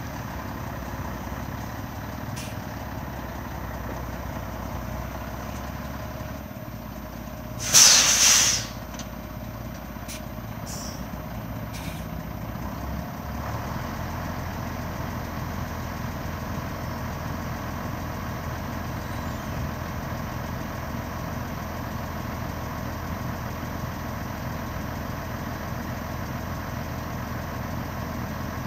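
Heavy three-axle crane truck's diesel engine idling steadily. About eight seconds in comes a short, loud hiss of released compressed air, typical of the truck's air brake system, and there are a few faint clicks.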